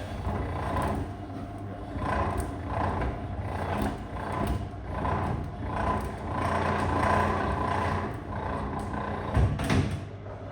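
PTH Rippa-38 electric cable stripping machine running with a steady motor hum, its sound swelling and easing in surges as cable works through the blades. There is a short sharp knock about nine and a half seconds in.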